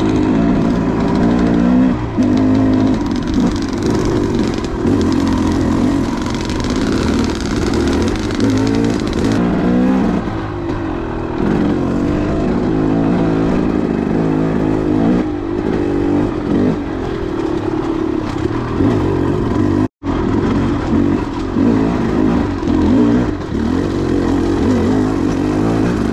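KTM 300 two-stroke dirt bike engine running under varying throttle while riding, its pitch rising and falling continually. The sound drops out for a split second about twenty seconds in.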